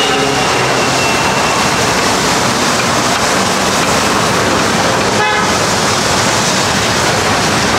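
Vegetable stuffing sizzling steadily in butter on a large flat iron tawa, over street traffic noise, with a brief vehicle horn toot about five seconds in.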